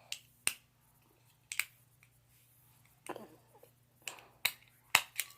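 A hand stapler clicking, about eight sharp clicks at uneven intervals, the loudest near the end.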